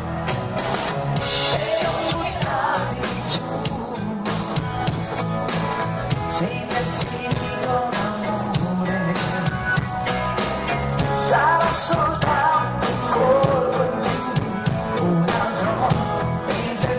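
Live band playing a pop-rock song with a drum kit and guitars, a woman singing lines over it at intervals, as it sounds in a sound check.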